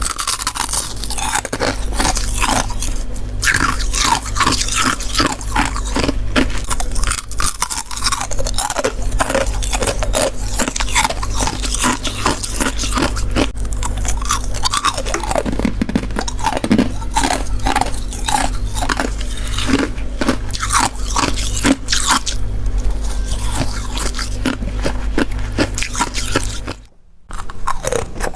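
Close-up biting and chewing of freezer frost: dense, crisp crunching and crackling over a steady low hum, with a brief gap near the end.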